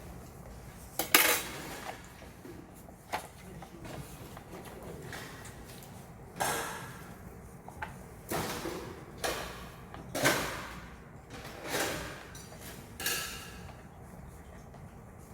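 A run of about eight clatters and scrapes of metal objects being handled, the loudest a sharp clank about a second in, several with a brief metallic ring.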